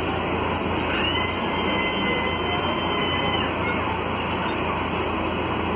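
Cabin noise of a Volvo B9SALF city bus underway: the steady drone of its Volvo D9A six-cylinder diesel with road and body noise. A thin high-pitched squeal comes in about a second in and holds for a little over two seconds.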